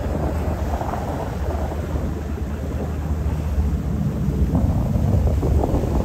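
Wind buffeting the microphone on a yacht under way, over a steady low rumble from the moving boat.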